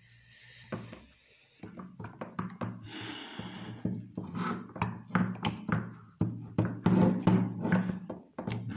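Repeated knocks and clicks of a VW Golf MK1 carburettor's metal body being gripped, tilted and knocked against a stone worktop as it is forced at one-handed, the top not coming free. The knocks come thick and irregular from about two seconds in.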